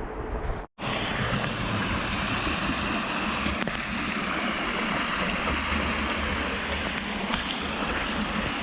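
Steady rushing wind noise on an FPV quadcopter's onboard GoPro microphone in flight, cut off to silence briefly under a second in and fading out near the end.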